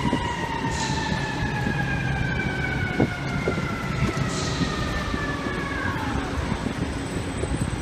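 Fire truck siren sounding one long wail that falls slowly in pitch and drops away faster about six seconds in, over the rumble of city street traffic.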